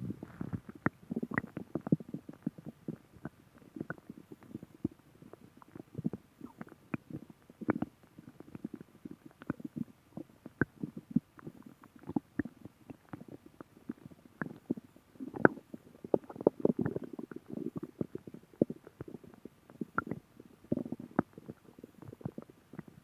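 Human stomach growling: a dense, irregular run of short pops and clicks in quick succession, loudest in a cluster about two-thirds of the way through.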